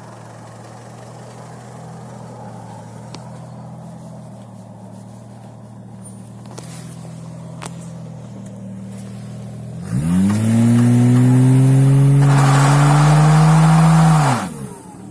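Toyota Mark II JZX90's 1JZ-GTE turbocharged straight-six running through an aftermarket JASMA exhaust: idling steadily, then revved sharply about ten seconds in, held high for about four seconds with the pitch creeping up, and let drop back to idle.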